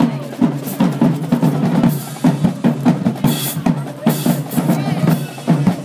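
School marching band drumline playing a steady, driving cadence on bass and snare drums.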